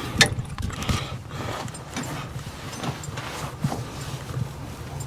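Scattered clicks and light metallic clinks of a lap seat belt's buckle and latch plate being handled.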